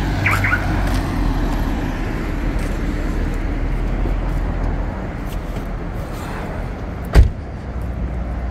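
A car driving past close by: the engine and tyre rumble is loudest at the start and eases into steady street traffic noise. A single sharp knock comes about seven seconds in.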